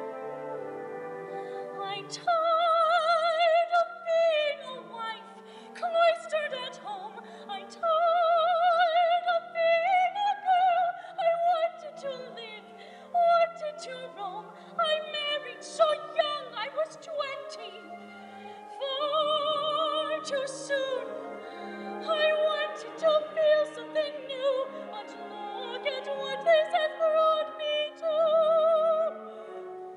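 A soprano singing an operatic solo in phrases of held high notes with wide vibrato, over a soft instrumental accompaniment.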